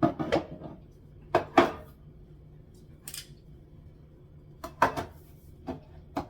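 Cans and jars being set down and moved on a cupboard shelf, a series of clunks and knocks in small clusters, with a short brushing sound about three seconds in.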